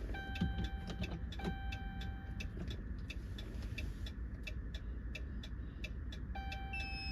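Hazard-light flasher of a 2012 Dodge Ram 1500 ticking steadily, about three clicks a second, with several electronic beeps, each held about a second, near the start, about one and a half seconds in and near the end.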